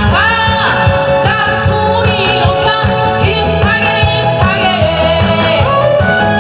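A woman singing live into a handheld microphone through a PA, over a backing track with a steady beat, holding notes with vibrato.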